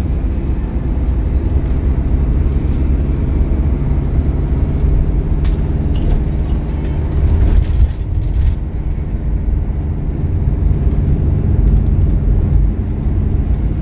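Motorhome cab noise on the move: the Carado T337's 2.3-litre diesel engine running steadily under road noise, with a few light clicks around the middle.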